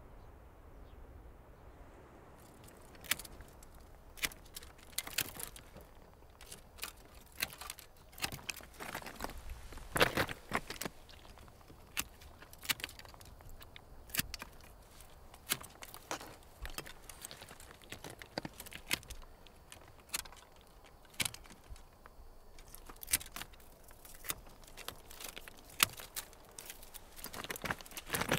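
Hand pruning shears cutting dry grapevine canes: a sharp snip at each cut, coming irregularly about once a second from a couple of seconds in. Between snips there is the crunch of feet shifting on loose lava stones.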